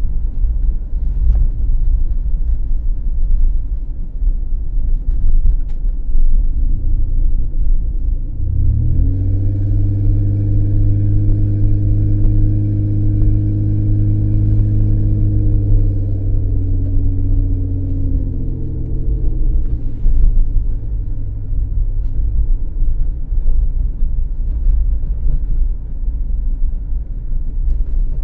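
Car on the move: a steady low rumble of road and engine noise throughout. About eight seconds in, a pitched engine drone rises sharply, holds for about ten seconds, then sinks away.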